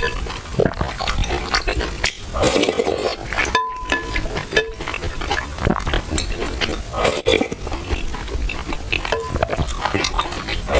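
Close-miked eating of milk tea with purple rice: a spoon clinking and stirring in the bowl, mixed with wet mouth sounds of eating, in a quick run of small clicks.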